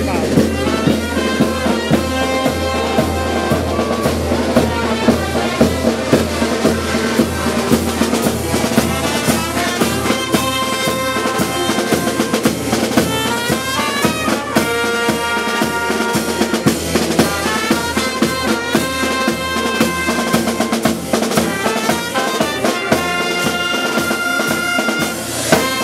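Street marching band playing: trombones, trumpets and other brass over a bass drum and a snare drum keeping a steady beat.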